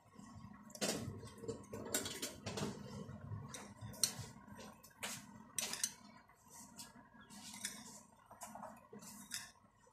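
A metal spoon clinking and scraping against ceramic bowls as granulated sugar is scooped from one bowl into another, in irregular light knocks.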